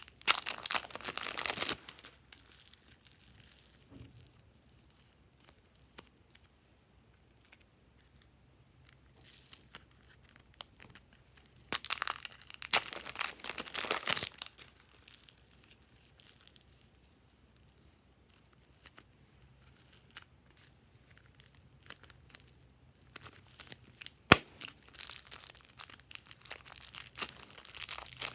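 Slime being stretched, squeezed and folded by hand, crackling and popping in three bursts with quieter handling between.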